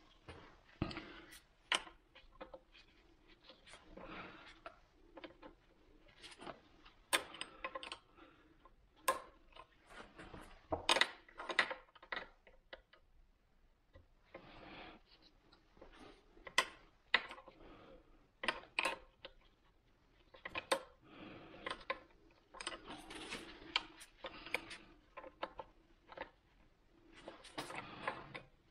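Irregular metallic clicks and clinks of a hydraulic hose fitting and small parts being handled against a Volvo Penta SX Cobra sterndrive's gimbal housing, with some rustling between them.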